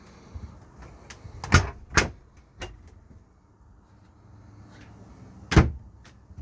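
A few sharp knocks and clunks: two loud ones close together about a second and a half in, a lighter one soon after, and the loudest near the end.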